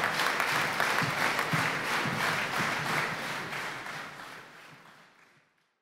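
Large concert audience applauding, a dense patter of many hands clapping, fading out to silence near the end.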